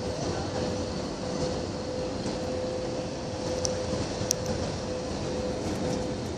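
Airliner cabin noise during the descent: the steady rush of engines and airflow heard from a window seat, with a constant hum under it. A couple of small sharp ticks come about four seconds in.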